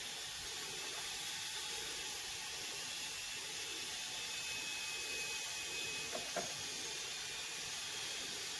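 Steady hiss of water heating in a pot on the stove, not yet at the boil, with a faint thin whine in the middle and a couple of small clicks about six seconds in.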